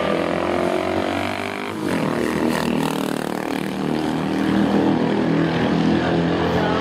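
Classic racing motorcycle engine accelerating hard toward the listener, its note rising, then sweeping past close by about two seconds in with a sudden drop in pitch. Engine noise stays loud after it passes.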